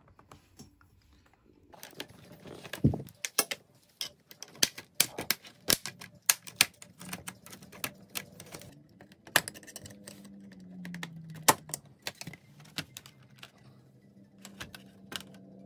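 Plastic snap clips of a laptop's bottom panel clicking and cracking as the panel is pried off along its seam with a thin tool. A quick run of sharp clicks that starts about two seconds in and thins out near the end.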